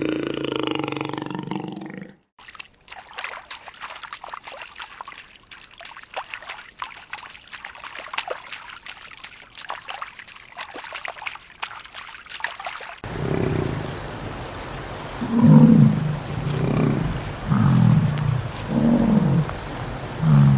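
Farm animal sounds: a long low call, then several seconds of scattered crackling and clicking, then a run of short low calls about one a second.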